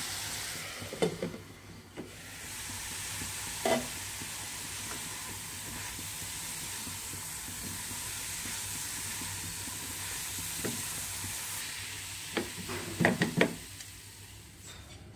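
Grated cauliflower sizzling in a frying pan as a spatula stirs it, with a few sharp knocks of the spatula against the pan. The knocks come in a quick cluster near the end, as the sizzle dies down.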